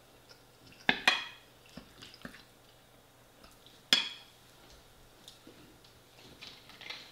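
Metal cutlery clinking against a ceramic dinner plate: a sharp double clink about a second in and a single clink just before four seconds, with faint ticks and scrapes between.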